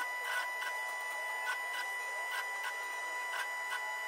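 Arc welding on the car body's sheet steel: an irregular crackle and sputter of the arc, several pops a second, with a steady high tone underneath.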